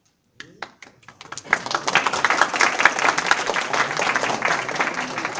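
Audience applauding: a few scattered claps about half a second in, swelling within a second into steady applause.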